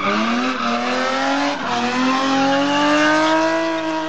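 Competition car accelerating hard out of a hairpin, its engine note climbing steadily, with a gear change about one and a half seconds in.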